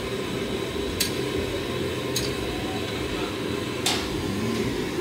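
Eatery background noise with three sharp clinks of dishes or utensils, spaced a second or more apart.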